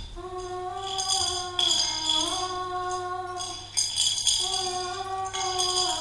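An airy sound effect: a wordless note sung and held, sliding slowly between pitches, over bursts of tambourine jingles shaken every second or two.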